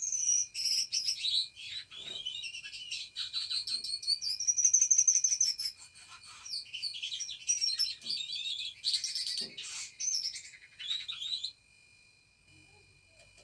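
Budgerigars chirping and warbling in quick, twittering chatter. The chatter stops about eleven and a half seconds in.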